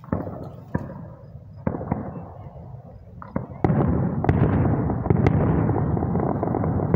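Aerial fireworks shells bursting at a distance: a few separate bangs in the first half, then from about halfway a louder, continuous rumble with sharper bangs in it.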